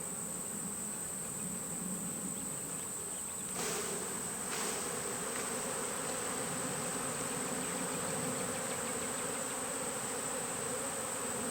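Honeybees buzzing as a steady mass hum around an open hive, swelling a little louder about three and a half seconds in.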